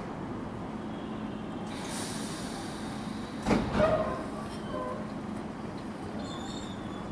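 JR West 213 series electric train standing at the platform with a steady low hum. A burst of air hiss comes about two seconds in. A loud knock follows about a second and a half later, trailed by short ringing tones.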